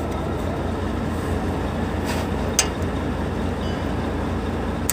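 A vehicle engine running with a steady low rumble, with a couple of light clicks about two seconds in and near the end.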